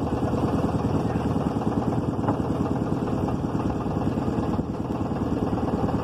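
Motorboat engine running steadily as the boat moves along the river.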